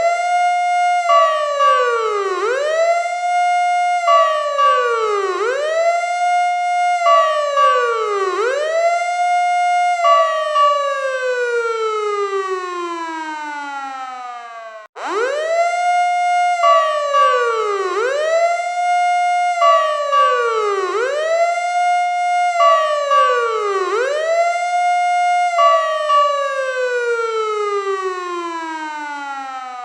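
Fire truck siren: it rises fast, wails down and back up about every second and a half, then winds down in one long falling tone. It stops abruptly about halfway through and the same cycle starts over.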